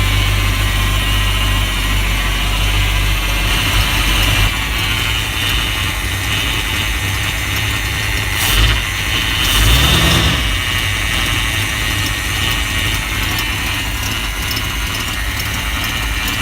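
Chevrolet C10's 350 small-block V8 idling steadily, with its idle speed just adjusted. About ten seconds in the engine speed briefly rises and falls.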